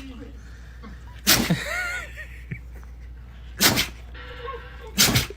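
A dog barking, three sharp barks a couple of seconds apart, the first trailing into a yelping, rising-and-falling whine.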